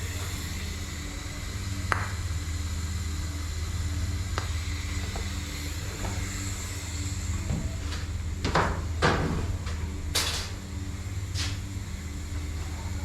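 Steady low hum of running equipment, with a handful of sharp metallic clinks and knocks. The loudest clinks come about nine to ten seconds in.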